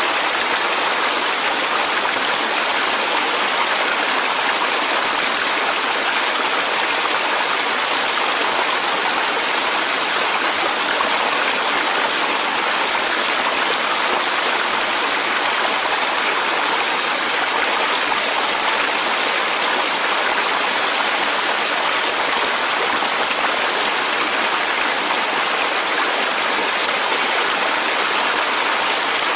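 Clear mountain stream flowing steadily over rocks, an even rushing and splashing of water.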